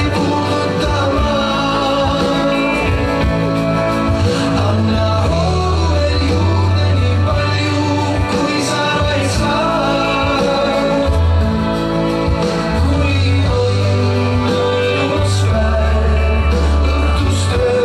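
Music with singing over a prominent bass line in long held notes, with a few sharp percussive hits.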